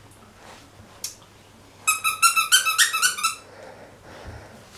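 A squeaky dog toy being squeezed quickly. It gives a rapid run of about ten short, high squeaks, starting about two seconds in and lasting about a second and a half.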